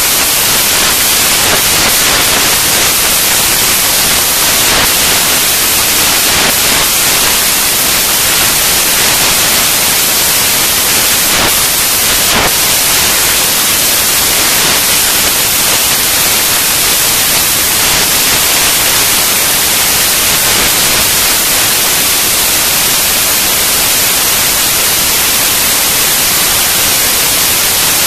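Loud, steady hiss like static, unchanging throughout, with a few faint clicks.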